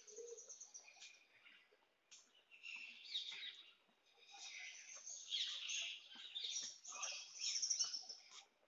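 Many birds chirping, their high calls overlapping in waves that die down briefly about two and four seconds in and are busiest near the end.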